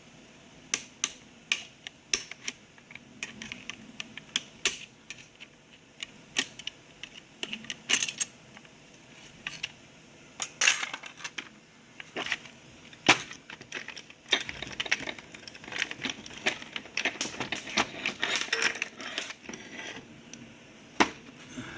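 Clutch plates from a 4L60E transmission's 3-4 clutch pack clinking and clattering as they are handled, a run of sharp metallic clicks that grows busier in the second half. The plates are burnt.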